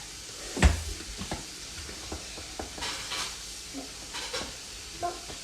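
Black bean burgers sizzling in a frying pan, with a utensil knocking and scraping against the pan as a patty is lifted out. There is one sharp knock about two-thirds of a second in and a few lighter clicks after it.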